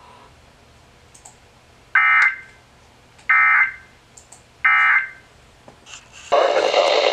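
Emergency Alert System SAME end-of-message tones: three short, buzzy digital data bursts about 1.3 seconds apart, marking the end of the flood warning broadcast. About six seconds in, a loud burst of radio static begins.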